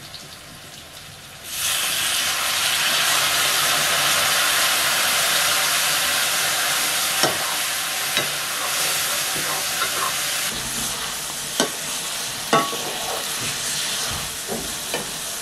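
Pork and vegetables frying in a black iron wok, a steady sizzle starting about a second and a half in. A metal ladle stirring them clinks against the pan a few times.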